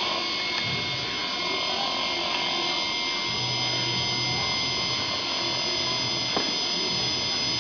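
Electric motor spinning at a steady high speed: a constant whine made of several steady high tones.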